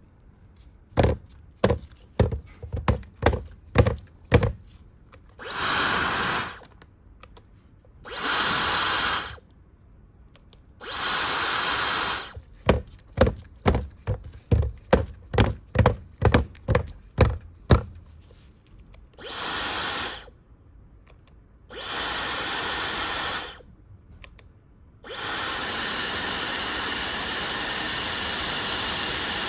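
Dyson hair dryer blowing in short spells of a second or two, then running steadily from about 25 s on, with a high whine over the rush of air. Between the spells come runs of sharp clicks, several a second.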